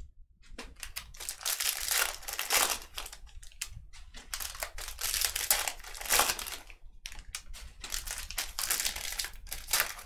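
Foil trading-card pack wrappers crinkling and tearing as packs are ripped open and the wrappers crumpled, in a string of irregular bursts.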